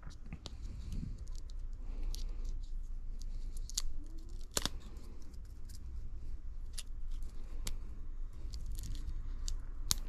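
Scattered, irregular sharp clicks and light taps of small tools and parts being handled at a phone repair bench, over a low steady hum.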